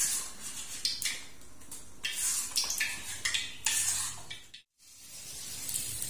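A spoon stirring and scraping thick batter in a bowl, in repeated strokes. After a brief cut about three-quarters of the way in, batter sizzles in hot oil in a wok.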